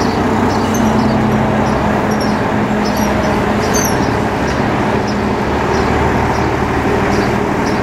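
Volvo FH 500 truck's 13-litre inline-six diesel running steadily through a straight-piped (échappement libre) MARRO exhaust as the truck moves slowly.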